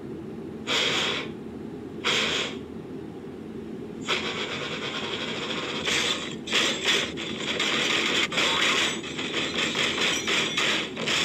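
Cartoon steam locomotive chuffing as it pulls away: two separate steam puffs, then from about four seconds in a quick, continuous run of chuffs, heard through a phone's speaker.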